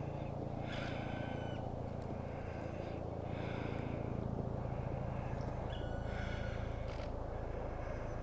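Black woodpecker calling: a few drawn-out calls, one every two to three seconds, over a steady low rumble.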